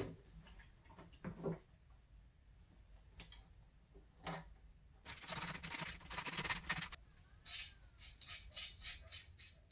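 Handling noise as a dirt bike gas tank is fitted back onto the frame: scattered knocks and clatter, with a quick run of clicks from about five to seven seconds in and a few separate knocks after it.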